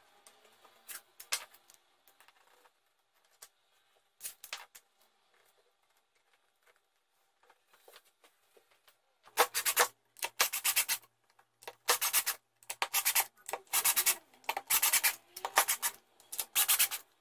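Screwdriver turning screws through 3D-printed plastic fixtures into a wooden base board: short, repeated screw-turning strokes, about two a second, from about halfway through. Before that, only a few light clicks of the plastic parts being handled.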